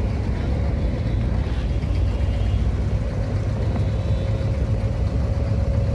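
Boat engine running steadily with a low rumble and a faint steady whine above it.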